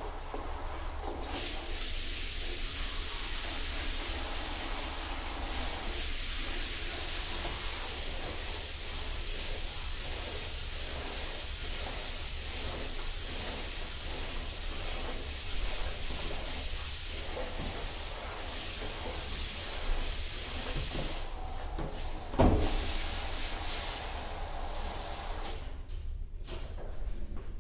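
Filtered water spraying from a hose nozzle into a plastic drum, a steady hiss that breaks off briefly and then stops near the end. A single loud knock shortly before it stops.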